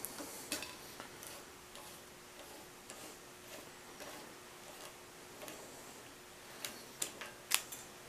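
Scattered light metallic clicks and ticks of a hand tap and T-handle tap wrench being handled and turned in a threaded hole in a cast iron bead roller frame, with a few sharper clicks near the end, over a faint steady hum.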